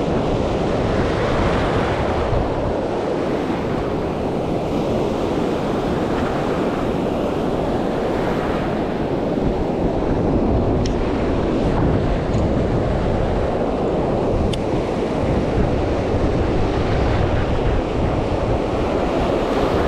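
Atlantic surf breaking and washing up the beach in a steady rush, with wind buffeting the microphone.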